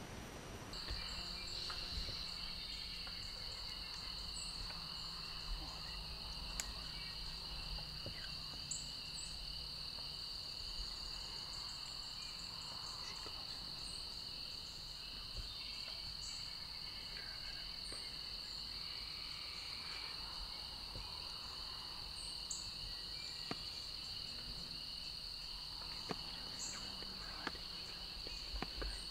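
A steady, high-pitched insect chorus droning without a break, with scattered faint short chirps and light ticks over it.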